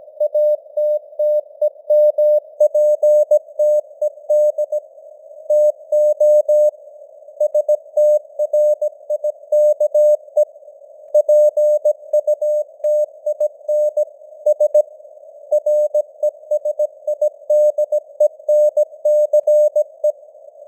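Morse code (CW) sent at 17 words per minute: a single-pitch beep keyed on and off in short dots and longer dashes, spelling out text, over a narrow band of simulated radio-noise hiss around the tone.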